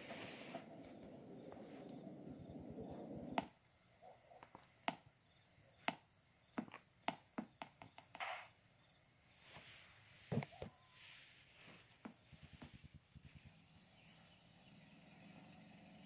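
Cricket chirping in a cartoon soundtrack, played through a handheld device's small speaker: one steady, evenly pulsed high chirp that stops about three quarters of the way through. A low rushing sound fills the first few seconds, and sharp clicks and taps are scattered through the middle.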